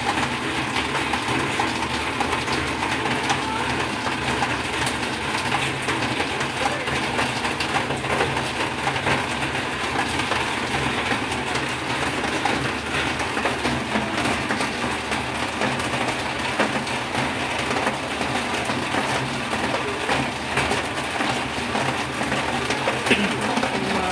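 Turon (sugared banana rolls) frying in hot oil, a steady sizzle with constant fine crackling.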